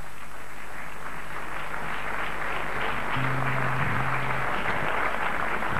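Audience applauding steadily, with a low held tone sounding for about a second and a half a little past the middle.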